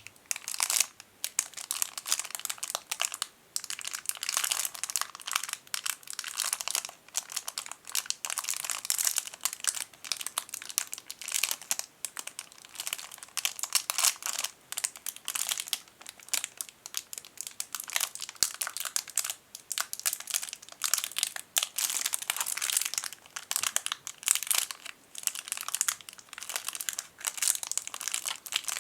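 Tiny plastic bag around a lens case being crinkled and squeezed in the fingers: dense, crackly rustling that comes in irregular bursts with brief pauses.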